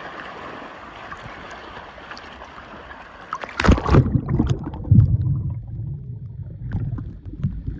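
Lake water sloshing with a steady hiss, then a sudden loud splash or knock about three and a half seconds in, followed by low rumbling and scattered clicks.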